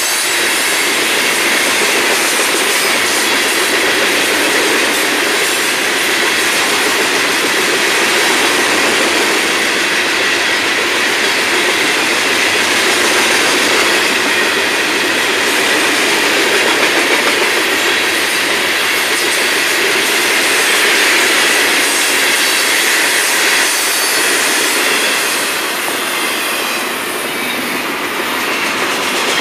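Freight train cars rolling past close by: a steady, loud rush and rumble of steel wheels on rail from open hopper cars. The noise dips slightly near the end as double-stack container well cars come by.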